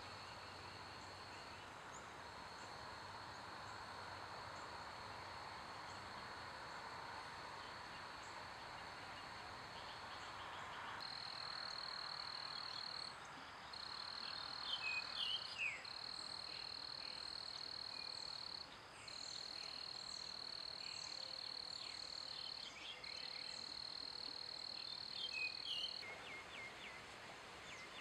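Outdoor evening chorus of insects: a steady high-pitched trill that runs on with short breaks, with a few bird chirps over it in the second half. Near the end the trill stops and a lower, faster ticking chorus takes over.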